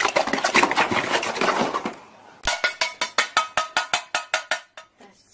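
Dogs' paws scrabbling and rustling on a fabric paddling-pool liner. After a cut there is a quick run of regular ringing clinks, about five a second, that stops near the end.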